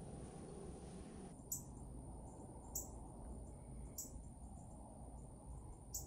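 Faint outdoor night ambience: brief, high-pitched insect chirps about four times, irregularly spaced, over a low steady rumble, with a thin high whine throughout.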